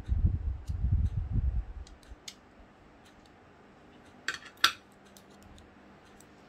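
Handling noises during a laptop teardown: dull thuds against the work surface for the first second and a half, then a few sharp small clicks of tools and parts, the loudest about four and a half seconds in.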